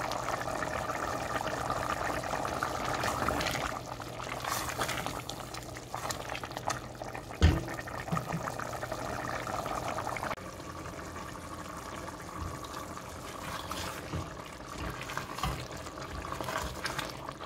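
Watery goat stew bubbling at a steady boil in a large pot on high heat, being cooked down to thicken, with a single sharp knock about seven seconds in and a spatula stirring near the end.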